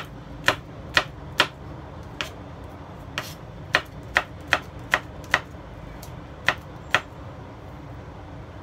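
A kitchen knife slicing garlic cloves thinly on a cutting board: about a dozen sharp, uneven taps of the blade striking the board, stopping about seven seconds in.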